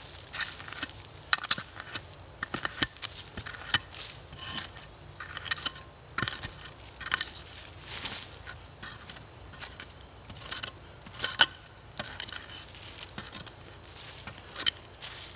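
A mattock chopping into leaf-littered soil and the roots of a northern red oak, with repeated sharp, irregular strikes about once a second and gritty crunching and scraping of dirt between them, as the roots are dug out around the trunk.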